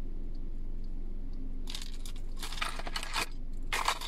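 Hard lures and tackle being handled and put away: rustling and clinking in three bursts, a short one near two seconds, a longer one around three seconds and another near four seconds in, over a steady low hum.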